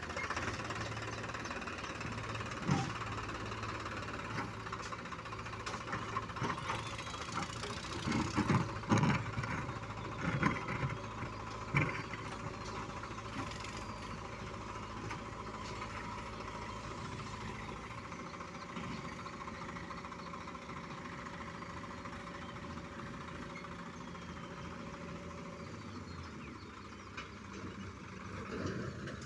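Diesel tractor engines running steadily as the tractors drive on rough ground, with a few louder knocks and thumps about a third of the way through.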